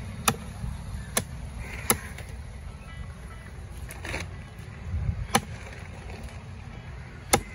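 Heavy cleaver chopping through a giant trevally's head and bone on a wooden log chopping block: single sharp chops at uneven intervals, over a steady low background rumble.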